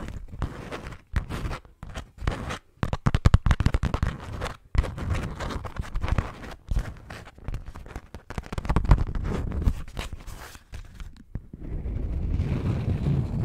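Sheet of beeswax food wrap crinkled and scrunched close to a microphone, giving dense, sharp crackles and snaps. About eleven seconds in it changes to a steady low rubbing as the wrap is rubbed flat against the microphone.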